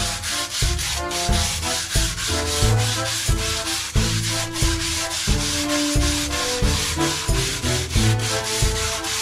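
Hand abrasive float scrubbing back and forth across a concrete slab, grinding off the cement skin to open the pores before bricks are laid. Background music with a steady beat plays underneath.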